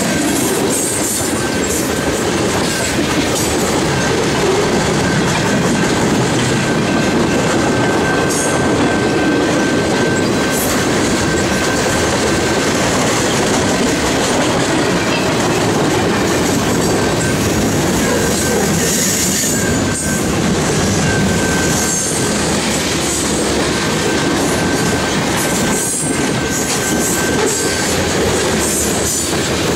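Freight cars rolling past close by: a steady clatter of steel wheels on the rails. A thin, high wheel squeal comes and goes over it.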